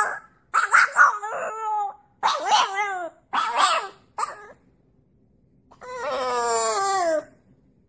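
French bulldog puppy howling: a run of short yowls over the first four seconds, then after a pause one longer howl that slides down in pitch.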